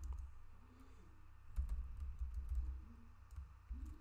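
Typing on a computer keyboard: an irregular run of keystrokes, the clicks coming with dull low thuds.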